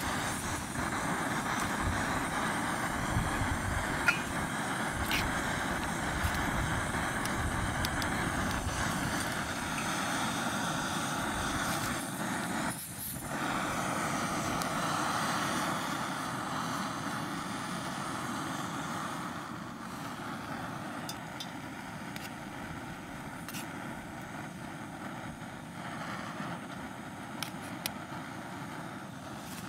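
Backpacking canister stove burning with a steady hiss under a metal mug of cooking noodles. The hiss drops a little about two-thirds of the way through, and a spoon gives a few light metal clinks against the mug.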